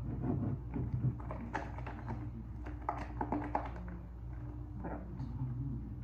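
Spatula stirring and scraping whipped-cream frosting against the side of a plastic bowl: soft, irregular clicks and scrapes, busiest in the middle seconds, over a steady low hum.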